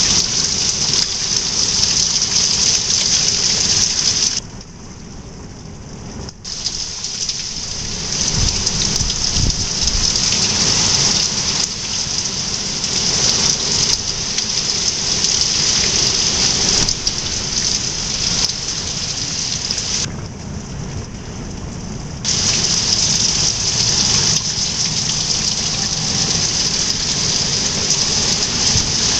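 Hurricane rain falling steadily with gusting wind, a continuous hiss that drops off twice for about two seconds each, about four and a half seconds in and again about twenty seconds in. Low rumbles come through about eight seconds in.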